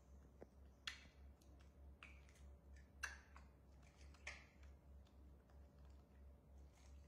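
Sparse sharp clicks and taps from young macaques eating and handling corn cob pieces over plates on a tiled floor, three louder ones about a second, three seconds and four seconds in. Under them, near silence with a faint low hum.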